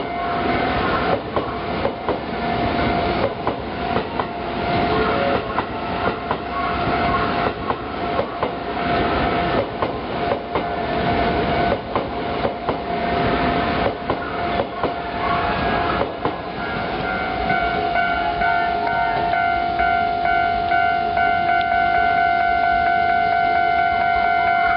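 An electric commuter train passing over a level crossing, its wheels clacking over the rail joints, while the crossing's warning bell rings steadily. About 16 seconds in the wheel clatter stops and the crossing bell goes on ringing alone, the crossing still closed.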